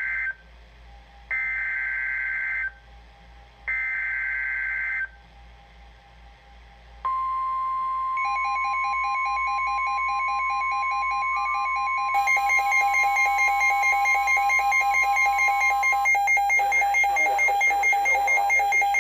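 NOAA Weather Radio SAME alert header: three bursts of digital data warble about a second apart, then the steady 1050 Hz warning alarm tone from about seven seconds in, which marks a warning (here a severe thunderstorm warning) about to be read. About a second after the steady tone starts, a pulsing electronic alarm beeping joins in. It gets louder and denser about twelve seconds in and keeps going after the steady tone stops near sixteen seconds.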